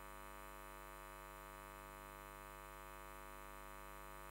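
Faint, steady electrical hum and buzz across many pitches, unchanging throughout.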